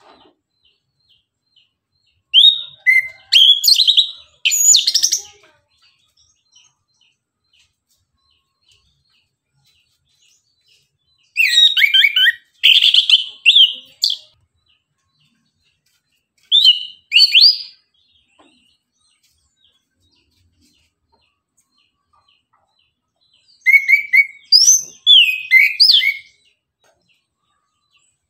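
Chestnut-capped thrush (anis kembang) singing in four loud bursts of rapid, varied high whistled notes, with pauses of several seconds between the bursts.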